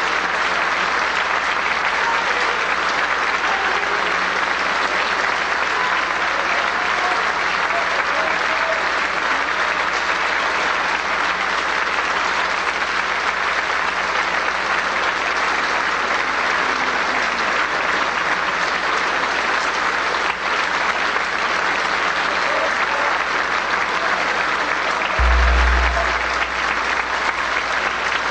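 Theatre audience applauding steadily, with a brief low thump about 25 seconds in.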